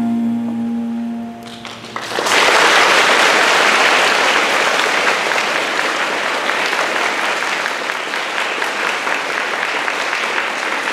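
Recorded music ends on a held chord, and about two seconds in an audience starts applauding, steady clapping that continues to the close.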